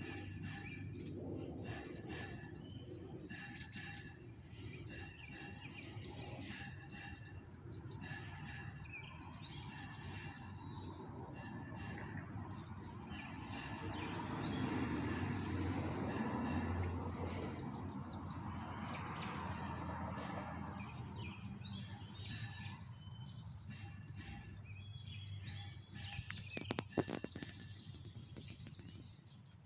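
Outdoor chorus of small birds chirping and singing over a steady low background hum. A broad rushing noise swells and fades in the middle, and a quick cluster of sharp knocks comes near the end.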